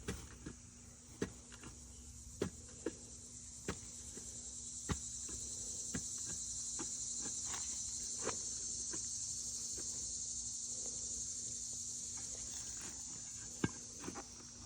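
A steady high-pitched insect chorus that swells louder through the middle and eases near the end, with scattered sharp clicks and knocks.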